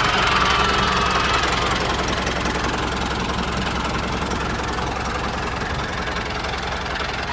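Small mini-tractor engine running steadily with an even low chug. A faint whine over it eases down in pitch in the first second or so.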